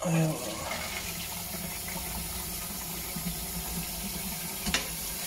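Water rushing steadily into a concealed wall-hung toilet cistern, with a surge as the isolating valve is opened with a flat screwdriver: the cistern filling. A single sharp click near the end.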